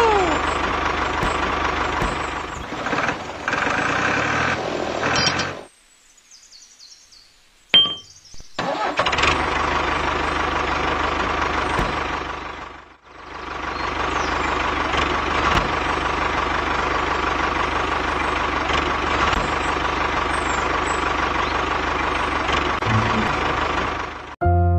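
Tractor engine running steadily. About six seconds in it cuts out for a couple of seconds, broken by one sharp click, then runs again, dips briefly near the middle, and stops just before soft piano music starts at the very end.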